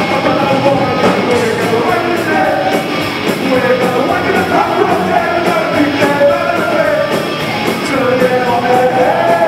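Punk rock band playing live: electric guitars, bass and drums, with a singer's vocals into the microphone.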